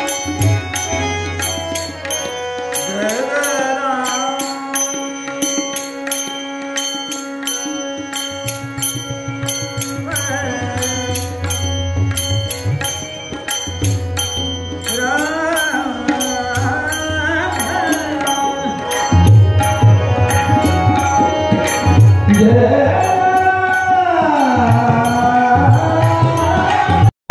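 Warkari devotional bhajan: a man's voice holding and bending long, wordless notes over tabla, with small cymbals ticking in a steady rhythm. The tabla strokes grow louder about two-thirds of the way through.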